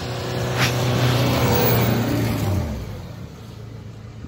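Toyota Land Cruiser 4x4's engine revving hard as it pushes through deep snow, then its pitch falls and it gets quieter about two and a half seconds in.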